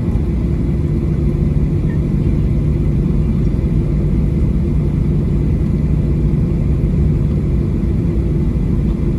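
Cabin noise inside a Boeing 737-800 on the ground after landing: a steady rumble from its CFM56-7B engines, with a low hum held at one pitch throughout.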